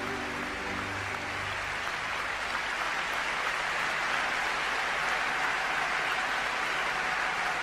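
The last notes of the skating program's music fade out about a second in, and audience applause rises and carries on steadily.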